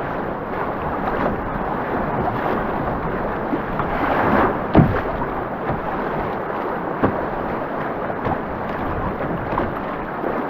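Loud, steady rush of turbulent whitewater rapids on a river in spring flood, with a few sharp splashes or knocks breaking through, the loudest about halfway.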